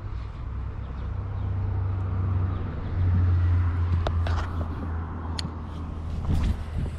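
An engine running at a steady low hum, which swells about three seconds in. A few sharp clicks come near the middle and end as the baitcasting reel is handled.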